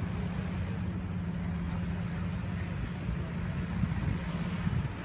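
Seaplane engine and propeller running steadily: a low, even hum that holds its pitch.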